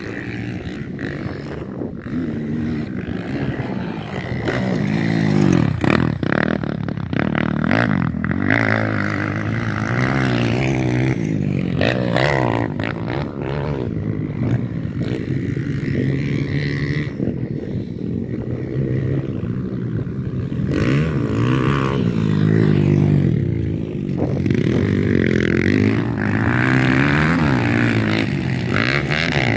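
Motocross dirt bike engines revving up and down again and again as the bikes ride the track, the pitch rising with each burst of throttle and falling as they ease off.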